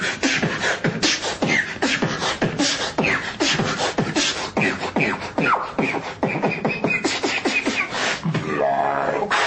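Beatboxing: a person making fast drum-like beats with the mouth, several hits a second, mixed with short sliding vocal effects. Near the end it changes to a brief held pitched tone.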